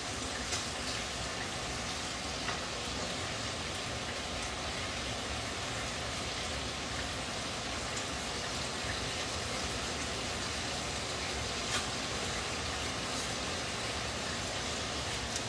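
Food frying in hot oil: a steady sizzle, with an occasional sharp pop or click.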